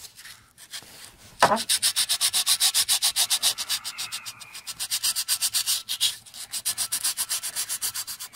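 Sandpaper rubbed fast back and forth by hand over the metal gasket face of a Yanmar 3HM45F exhaust port, scrubbing off leftover paint. Rapid, even scratching strokes, several a second, begin about one and a half seconds in, with a short break near the end.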